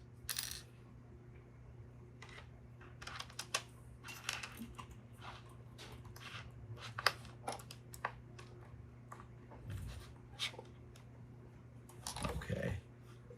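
Scattered light clicks and taps of small metal parts and a screwdriver being handled while a sewing machine needle is changed, over a faint steady hum.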